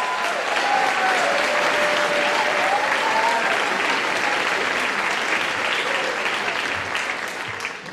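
Audience applauding, a steady clapping that tapers off near the end.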